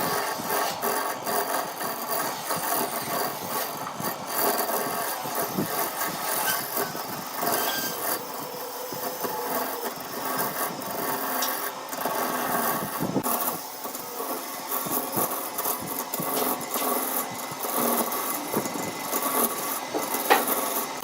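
Wood lathe running while a turning tool cuts the spinning wood: a continuous scraping, rasping noise over the machine's steady hum, with small irregular knocks and catches.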